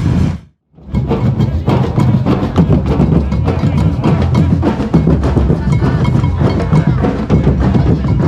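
Street drum group playing a dense, fast rhythm, with sharp wooden or rim clicks over booming low drums. The sound drops out briefly about half a second in, then the drumming carries on.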